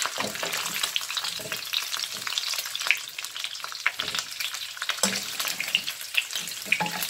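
Pieces of pork and chicken sizzling in hot oil in a pot, a steady hiss full of small crackles and pops as the meat sears.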